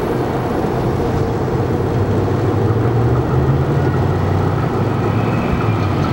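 Electric commuter train, a Silverliner V multiple unit, running past on elevated track: a steady low rumble with a hum that swells a little in the middle.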